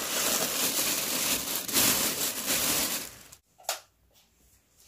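Thin plastic bag crinkling and rustling as it is pulled down over a basket. It stops about three seconds in, with one brief rustle after.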